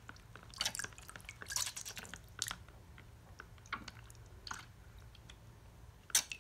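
Hand moving in a small plastic bowl of water, giving a few short, irregular splashes and drips.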